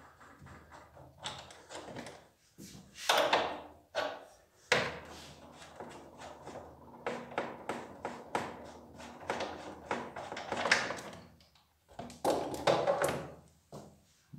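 Irregular metallic clicks, knocks and clinks from a 22 mm wrench on the brass fittings of a pressure washer pump as the high-pressure hose to the heating coil is loosened and unscrewed. The loudest knocks come about 3 s in, near 5 s, near 11 s and around 12 to 13 s.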